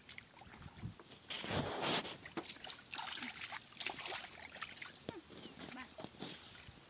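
Bare feet wading and squelching through shallow muddy water, with hands groping in it. There is a loud splashing rush about a second and a half in, then scattered smaller splashes and sloshes. An insect chirps in a fast, regular pulse near the start and the end.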